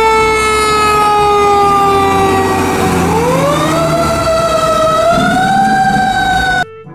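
Fire truck siren wailing over a low rumble: its pitch sinks slowly for about three seconds, then climbs again. It cuts off abruptly near the end.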